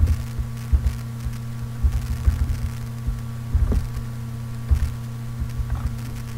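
Steady electrical hum from a poor microphone, with irregular low crackles and thumps. The crackle, like analogue radio static, comes from the microphone's noise suppression being switched off.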